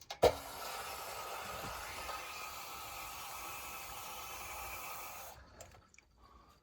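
A sharp click, then a steady hiss for about five seconds that cuts off suddenly.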